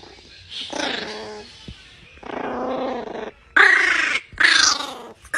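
A Chihuahua growling in four separate bouts, the last two loudest.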